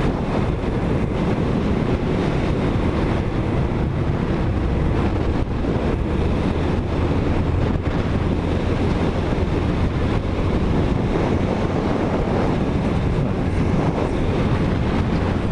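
Wind rushing over a rider's microphone on a moving motorcycle, with the steady drone of the engine and road noise underneath.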